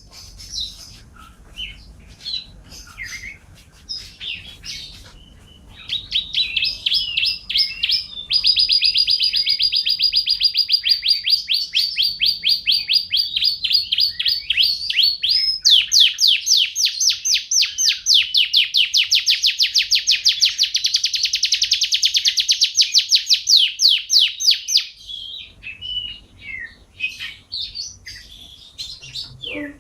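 Domestic canary singing: scattered chirps, then two long rolling trills of very fast repeated notes from about six seconds in to about twenty-five seconds in, the second trill with rising notes, before breaking back into short chirps.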